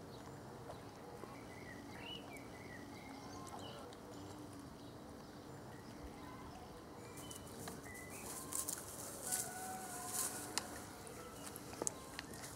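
Faint outdoor background with a few scattered bird calls. From about halfway through, a run of sharp clicks and rustles.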